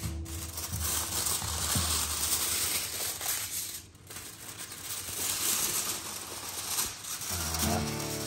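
Aluminium foil crinkling and rustling as it is pulled back off a roasting tray, with a short lull about halfway through.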